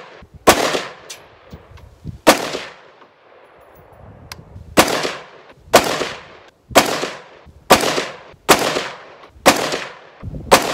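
Short-barrelled AR-15 with a 7-inch 5.56 barrel firing single shots, about nine in all, each a sharp crack with a trailing echo. The first few come a couple of seconds apart, then about one a second from about halfway through.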